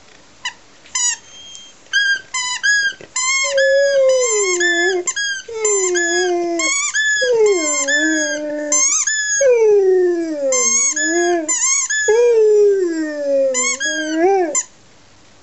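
Dog howling with a ball held in its mouth: a few short squeaky yelps first, then a long run of wavering howls that slide down in pitch, with brief breaks between them, stopping shortly before the end.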